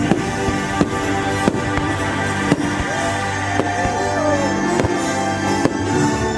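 Fireworks show soundtrack music playing with firework bursts banging over it, a sharp report roughly every second.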